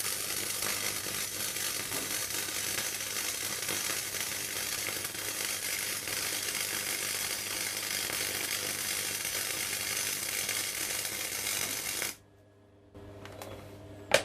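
Gasless (flux-cored) MIG welder arc crackling steadily for about twelve seconds while a bead is run along the metal, then cutting off suddenly. A fainter steady hum and a single click follow near the end.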